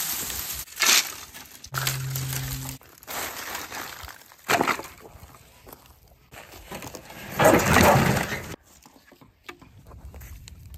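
Dry brush and branches crackling and clattering as they are handled, in several separate bursts, the loudest one lasting about a second near the end. A short, steady low hum cuts in and out about two seconds in.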